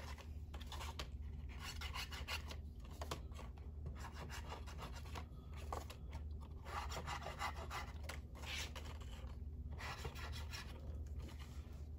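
Cardstock rustling and rubbing in the hands as glue is run along the inside tabs of a paper box, in short irregular scratchy bursts over a low steady hum.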